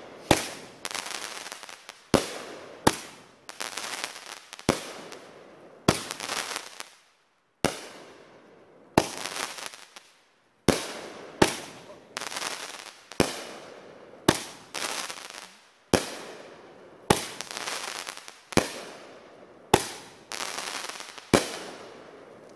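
Aerial fireworks bursting in a steady run of about twenty loud bangs, roughly one a second. Each bang is followed by a fizzing tail of sparks as it dies away.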